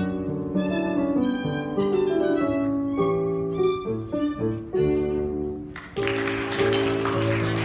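A boy playing a gavotte on the violin, a run of bowed notes changing pitch quickly. About six seconds in, a rushing hiss of noise joins the music.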